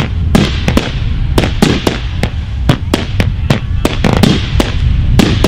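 Fireworks going off in a rapid, irregular string of sharp bangs, three or four a second, over a continuous low rumble.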